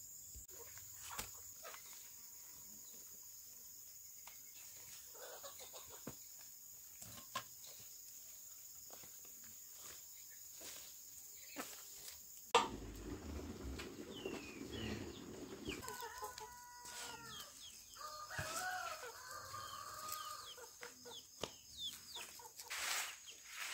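Domestic chickens clucking in short repeated calls through the second half, after a few seconds of low rumble. Before that there are only faint rustles and clicks.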